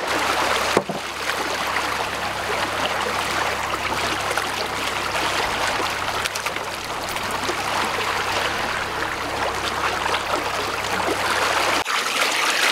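Seawater rushing and splashing along the hull and in the wake of a trawler moving at idle speed, with a steady low engine hum under it. There is a single knock about a second in, and the low hum drops away near the end.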